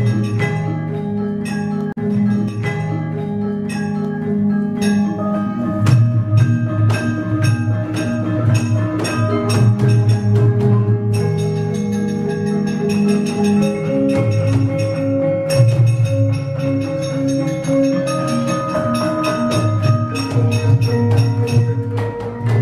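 Javanese gamelan ensemble playing: many struck bronze metallophone and gong notes overlapping in a steady pattern.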